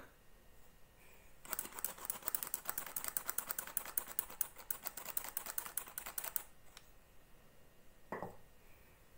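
Handheld metal flour sifter being worked over a bowl of dough mixture, giving a rapid, even clicking for about five seconds. A single short knock follows about eight seconds in.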